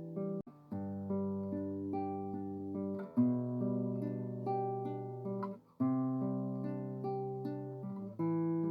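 Background music: a guitar playing plucked chords that ring and fade, changing with a short break about every two and a half seconds.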